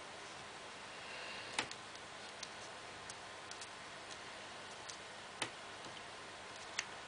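Light clicks and taps of two wooden pencils being handled and pressed together by hand. Three sharper clicks stand out, about a second and a half in, near five and a half seconds, and near the end, among a few fainter ticks over a faint steady hiss.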